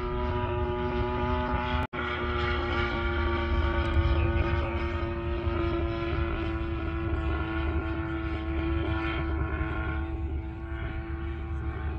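DLE 20cc single-cylinder two-stroke gasoline engine of a 2 m wingspan RC airplane running steadily in flight, its buzzing drone holding an even pitch. The sound drops out for an instant about two seconds in.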